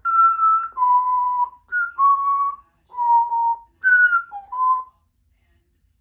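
Congo African grey parrot whistling a short tune of about eight clear notes, alternating higher and lower, some sliding slightly down in pitch, stopping about five seconds in.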